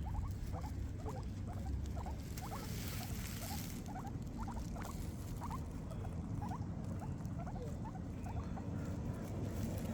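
Guinea pigs eating grass: steady chewing with many short, rising squeaky notes, several a second. About three seconds in there is a brief burst of rustling.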